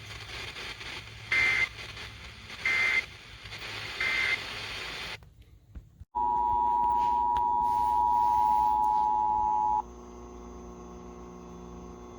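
Emergency Alert System tones over a hissy broadcast: three short digital data bursts about a second apart, the end-of-message code closing the previous alert, then after a brief gap the loud two-tone EAS attention signal held for about three and a half seconds, announcing a new alert.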